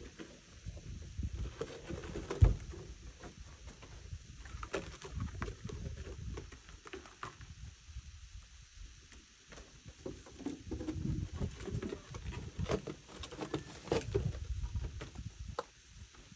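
Peafowl pecking at treats and stepping about: irregular light taps and soft thumps, with one sharper, louder knock about two and a half seconds in.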